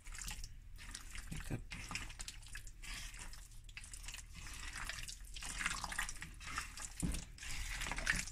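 A bare hand squishing and mixing cubed chicken breast through a thick yogurt marinade in a bowl, making an irregular run of wet squelches.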